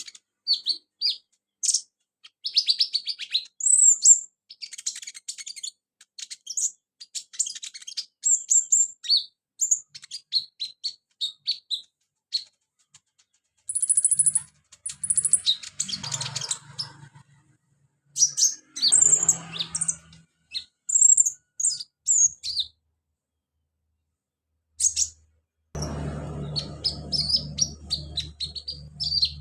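Brown-throated sunbird (kolibri ninja) singing in bursts of fast, high chirps and twittering trills, its song filled with mimicked house sparrow, cricket and chick calls. A low steady hum comes in near the end.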